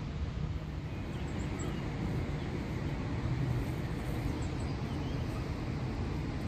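Steady low outdoor rumble with a few faint, short high bird chirps scattered through it.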